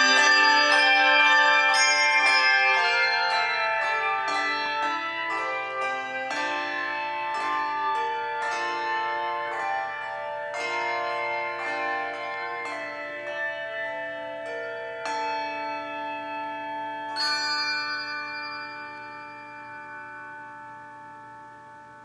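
Handbell choir playing: struck notes and chords ring over one another. The notes come more sparsely as it goes, and a last chord about seventeen seconds in rings on and fades away.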